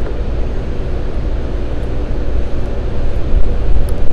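Steady drone of rooftop chiller machinery running: a low hum with several steady tones above it, getting a little louder near the end.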